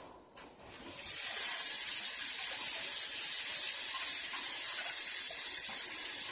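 Kitchen sink faucet running, a steady hiss of water that starts about a second in.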